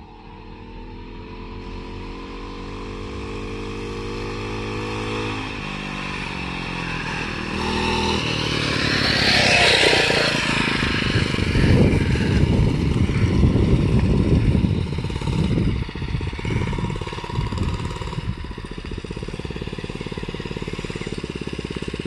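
Mini bike's small engine running, growing louder as the bike approaches and passes close about ten seconds in. It stays loud for several seconds, then settles to a steadier, quieter idle near the end.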